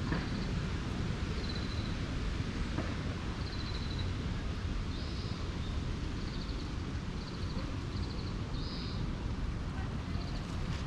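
Low wind rumble on the microphone, with a small bird repeating short high trills every second or two.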